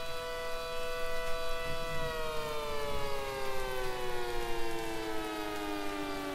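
Synthesized Federal Signal SD-10B outdoor warning siren sounding a two-note chord, held steady and then winding down in pitch from about two seconds in.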